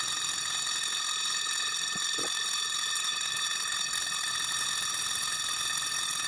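Carbide metal-cutting circular saw blade spinning on the Atlas machine's arbor and slitting aluminum stock, giving a steady high-pitched whine, with one faint click about two seconds in.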